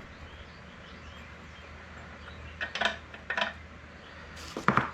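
Metal parts of a bench grinder's wheel assembly clinking and clattering as they are handled and set down, in three short bursts, the last one the loudest.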